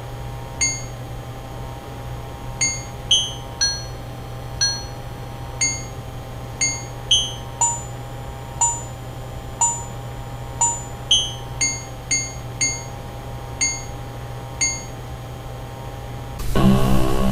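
Home-made synthesized music: short, ringing, chime-like electronic notes about once a second, at shifting pitches, over a steady low hum and a held drone. It is recorded through a cheap microphone, so the sound quality is poor. Near the end, a louder, busier rhythmic synth track cuts in.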